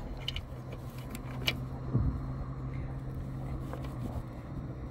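A few light clicks of needle-nose pliers and metal spade connectors being handled among air-conditioner wiring, over a steady low hum that stops about four seconds in.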